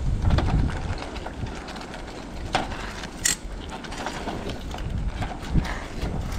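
A metal spoon scraping and clicking against the inside of a metal camp pan as it stirs a thick, sticky mix of sweet adzuki beans and mochi. There are irregular sharp clinks, over a low steady rumble.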